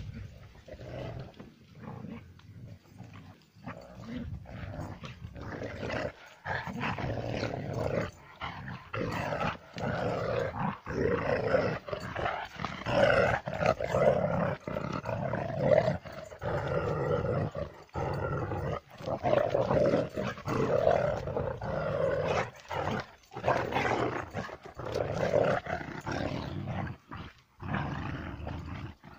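Two dogs, one a Kangal shepherd dog, growling almost without a break as they wrestle, the growls coming in rough stretches with short pauses between them.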